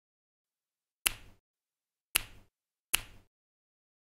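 Three sharp clicks of small plastic parts snapping together, about a second apart.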